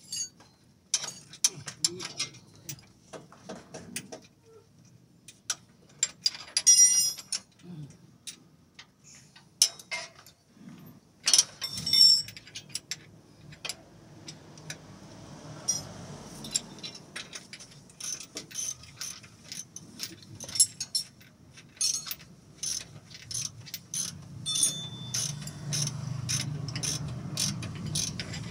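Mechanic's hand tools working on a car's underbody: a long run of sharp clicks and knocks, scattered at first, then coming quickly and fairly regularly in the second half, over a low hum that grows louder near the end.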